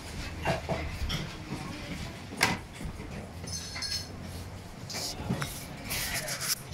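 Restaurant clatter: dishes, cutlery and glasses clinking, with one sharp clink about two and a half seconds in and a ringing clink near four seconds, over a low hum and scattered voices.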